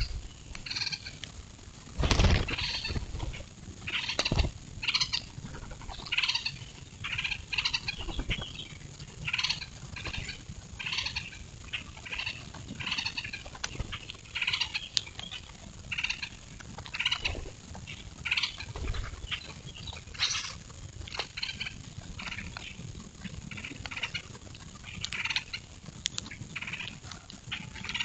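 A flock of grackles calling, short high calls following one another about every half second to a second, with a few dull thumps in the first several seconds.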